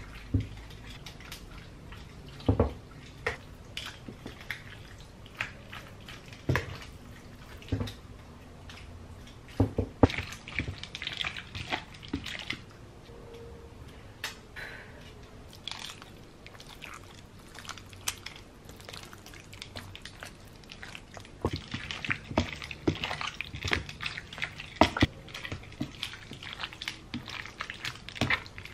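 Seasoned raw chicken thighs being tossed with tongs in a glass baking dish: wet squelching of the meat and scattered clicks of the tongs against the glass, busier near the end.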